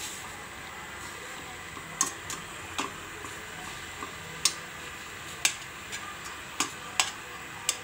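Tocino (sweet cured pork) cooking in a pan of boiling liquid that is reducing down, a steady bubbling hiss with a scatter of sharp pops, about ten of them, from about two seconds in.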